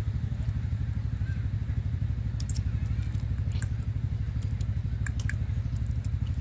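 A few sharp clicks of boiled river clam shells being handled and pried open by fingers, over a steady low rumble.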